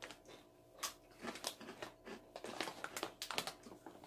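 Crunchy Rancheritos tortilla chips being bitten and chewed, mixed with the plastic chip bag crinkling as a hand reaches into it; irregular crisp crunches and rustles.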